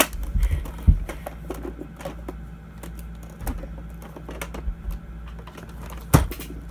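Plastic Nerf Rival blaster being handled and loaded with foam balls: a run of small plastic clicks and knocks, with sharper knocks at the start, about a second in, and near the end.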